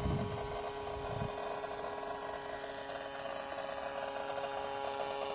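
Acer Predator 17 gaming laptop giving off a steady electrical whine of several fixed tones over a crackling buzz: coil whine and electrical discharge under heavy CPU/GPU load, which turned out to come from a faulty motherboard. Two short low rumbles in the first second or so are the phone microphone being moved against the laptop.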